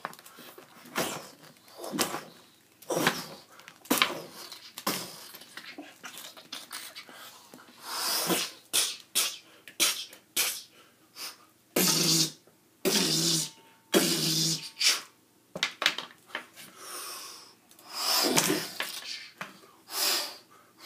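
A person making mouth sound effects for a toy play fight: a string of short puffs and grunts, with a few longer voiced grunts in the middle.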